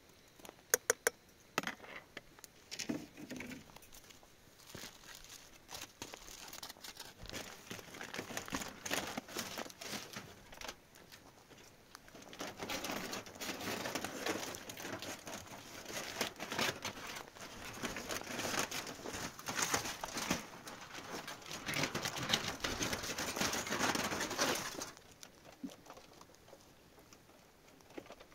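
Aluminium foil crinkling and rustling as it is handled and folded. The crinkling is dense and loudest through the middle and latter part, then stops suddenly near the end. A few sharp metal clicks, like a spoon against a pot, come near the start.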